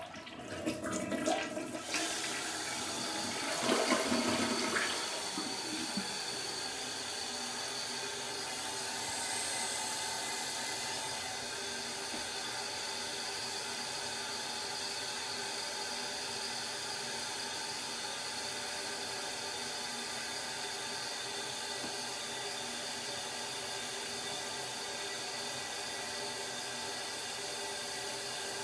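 Toilet flushed by the handle on the side of its tank: water rushes through the bowl for the first few seconds, loudest about four seconds in, then the tank refills with a steady hiss. It is a normal, complete flush and refill.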